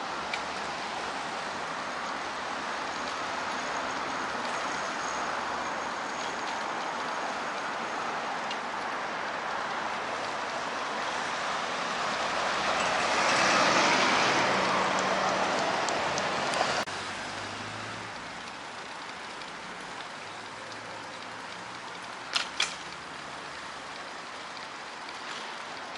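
Steady rush of wind and road noise from a bicycle ride in a cold wind. It swells for a few seconds midway, drops off suddenly, and two short clicks come later.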